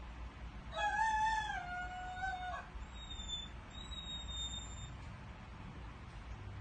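A dog's long, rooster-like crowing howl of about two seconds: the pitch rises, then drops a step and holds before it stops. It is followed by two thin, high, whistle-like tones.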